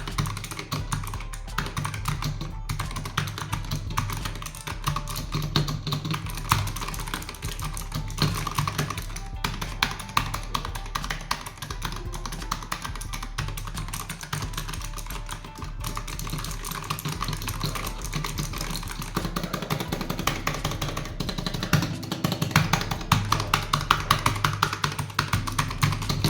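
Continuous fast typing on a Razer Huntsman Mini mechanical keyboard with Razer optical switches and doubleshot PBT keycaps: a dense run of key clicks, with some louder strikes near the end. Background music plays under it.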